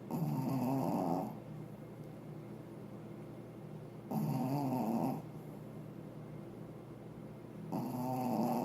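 Pekingese dog snoring: three snores about four seconds apart, each a wavering tone lasting about a second.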